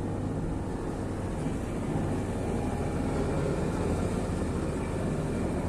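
A sailboat's engine running steadily under way, a low, even drone with the wash of wind and water over it.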